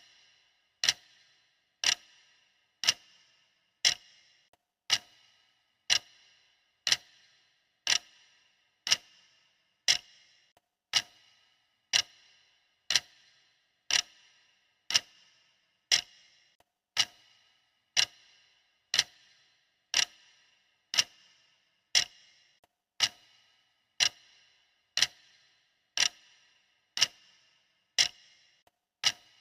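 Stopwatch ticking sound effect: a steady clock tick, one sharp tick every second, each with a brief metallic ring.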